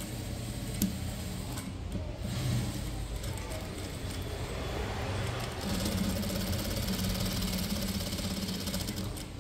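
Industrial single-needle lockstitch sewing machine running, stitching a seam through heavy embroidered lehenga fabric. The hum grows steadier and louder a little past halfway, and there is a single sharp click about a second in.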